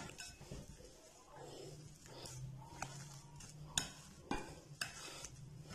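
Metal potato masher mashing boiled potatoes in a glass bowl, with soft squashing and several sharp clinks as the masher strikes the bowl.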